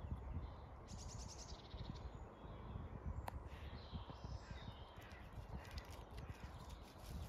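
Wild birds calling and singing faintly, with a rapid trill of high notes about a second in, over a low rumble of wind on the microphone.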